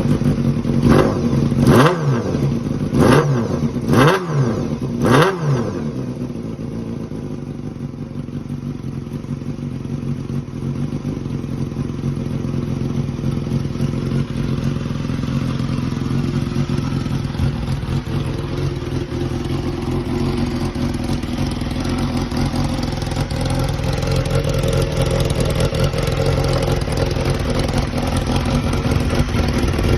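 Honda Jade 250 inline-four motorcycle engine with a 'gyan-naki' exhaust setup and silencer fitted, just started. It is revved in five quick throttle blips, about one a second, then settles to a steady idle whose level creeps up slowly.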